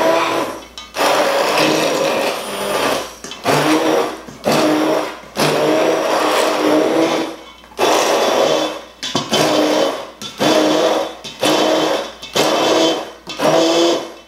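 Hand-held immersion blender whirring through chopped gazpacho vegetables that are now mostly liquid, in a stainless steel bowl. It runs in short bursts of about a second with brief stops between, and its motor pitch climbs slightly as each burst spins up.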